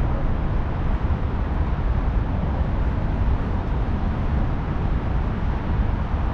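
Steady low outdoor rumble with a hiss above it, without any distinct knocks or clicks.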